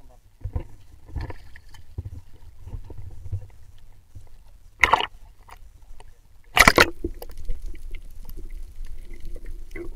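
Sea water sloshing and splashing against a camera held at the surface, with two loud splashes, the second about two-thirds of the way through as the camera goes under. After that, the muffled, dull sound of the water heard from below the surface.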